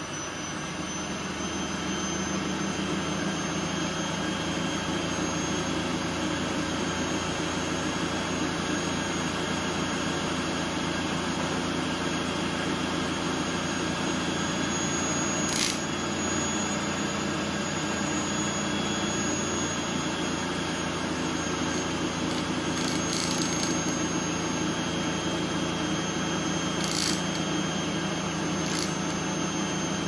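Motor-driven disk of neodymium magnets spinning at speed beside an aluminium plate, a steady mechanical drone with a high whine. The plate is being heated by the eddy currents the magnets induce in it. The drone swells in the first couple of seconds and then holds steady, with a few sharp clicks in the second half.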